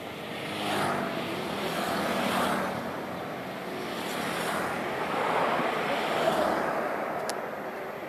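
Road traffic passing: several swells of tyre and engine noise that rise and fade one after another, with no horn tune.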